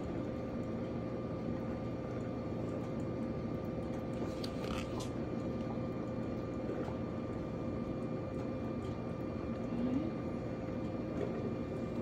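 Cuisinart DCC-450BK drip coffee maker brewing: a steady hiss and gurgle of water being heated and pushed through, over a faint steady hum.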